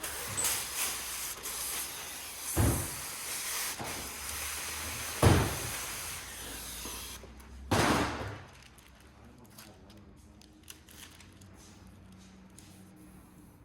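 A steady hiss, like air blowing, that stops about seven seconds in, with three dull knocks a couple of seconds apart.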